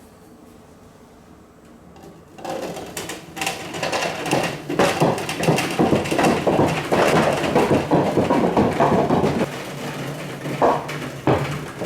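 Marbles clattering and rattling down plastic spiral somen water slides with water running through them, a dense stream of rapid knocks starting suddenly about two seconds in after a faint hum.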